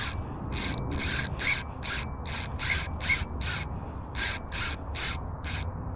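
Fishing reel being cranked in short quick bursts, a rasping whir two to three times a second with a brief pause a little past halfway, as the angler takes back line on a hooked stingray that has stopped running. A low steady rumble of wind lies underneath.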